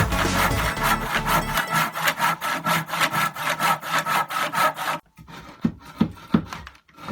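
Hand saw cutting through wood in quick, even back-and-forth strokes that stop about five seconds in.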